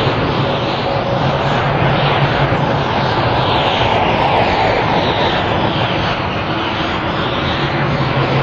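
Super Saiyan Berserker energy-aura sound effect: a steady, loud rushing roar over a low hum, with slow whooshing swells rising and falling on top.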